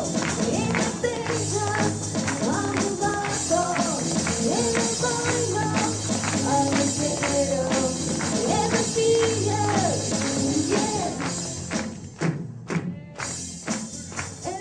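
Live pop-rock song played by a band, with a sung melody over steady drums and percussion. About twelve seconds in, the band drops to a few separate drum hits for a moment, then carries on.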